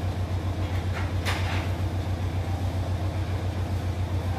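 A steady low hum that pulses evenly about five times a second, with a short hissing noise about a second in.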